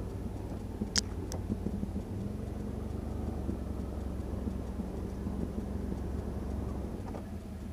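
ATV (quad bike) engine running under way over rough dirt, a steady low rumble. Two sharp clicks about a second in.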